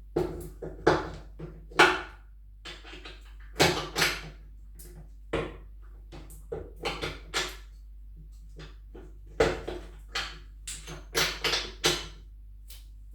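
Irregular clicks and knocks of motorcycle parts and hand tools being handled and set down during assembly, over a steady low hum.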